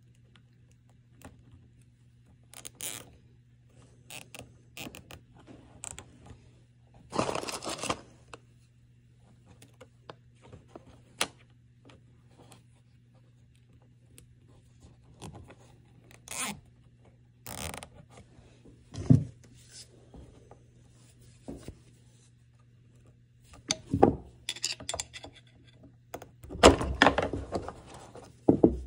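Plastic zip ties being threaded and pulled tight around a fuel hose on a plastic oil tank: scattered short clicks, rustles and scrapes, busiest near the end.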